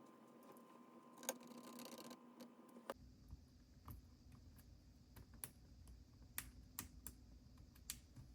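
Faint, scattered light clicks and taps of small laptop parts being handled during a battery replacement, about one every second, over low background noise.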